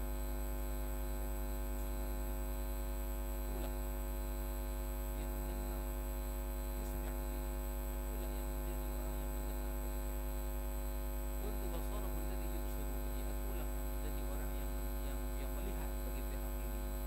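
Steady electrical mains hum picked up by the sound system: a constant low buzz with many evenly spaced overtones that does not change.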